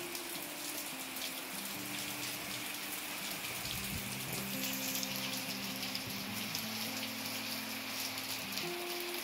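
Steady rain falling on a concrete patio, plants and the surface of a backyard pool, a dense patter of small drops. Faint background music with held low notes runs underneath.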